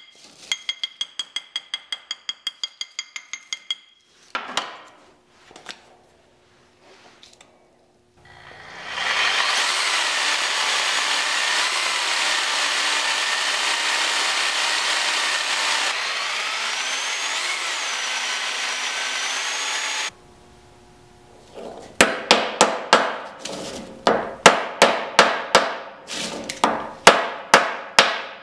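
Quick light metallic taps with a ringing tone, about five a second, on a square steel-tube forge-welding canister at the start. A steady loud rushing noise with a few gliding tones runs through the middle. Near the end come hard hammer blows, about three a second, tamping powdered steel tightly into the can.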